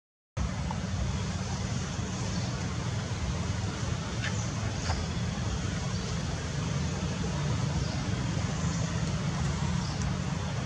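Steady outdoor background noise: a constant low rumble with a hiss above it, after a split-second dropout at the start, with a couple of faint clicks about four and five seconds in.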